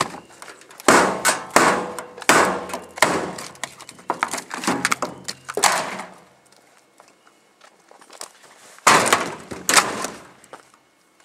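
A series of loud crashing and clattering impacts for about six seconds, then a quieter spell and a second loud cluster of crashes around nine to ten seconds in.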